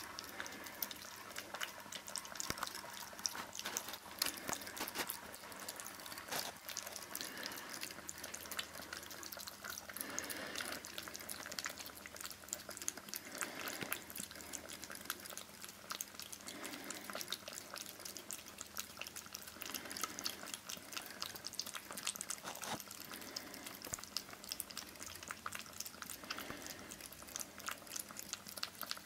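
Two kittens lapping and slurping yogurt from a stainless steel bowl: a fast, uneven stream of small wet licking clicks, picked up close to the bowl.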